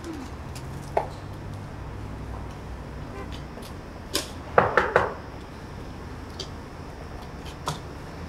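Knuckles knocking on a large old wooden door: a single knock about a second in, then a quick run of about four knocks about four seconds in, over a low steady hum.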